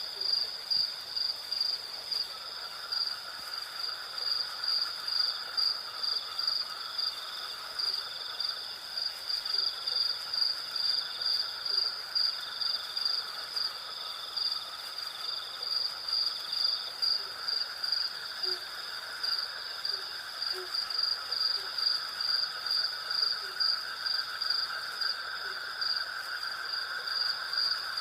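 Night chorus of crickets and cicadas: several steady trills at different pitches layered together, the highest one pulsing evenly about twice a second.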